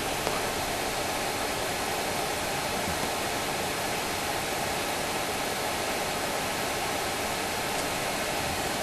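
Hot air wand of an 853D rework station blowing a steady hiss of hot air, heating a brass threaded insert so it can be set into the plastic.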